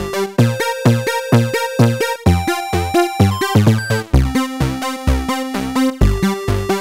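Background music: an upbeat electronic tune with a steady beat and bright pitched notes.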